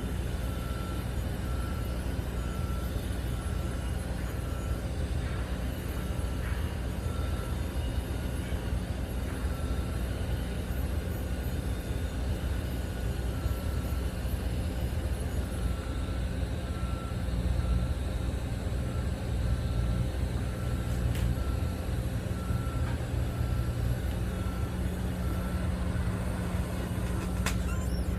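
Steady low machinery hum with a hiss, and a short high beep repeating every second or two.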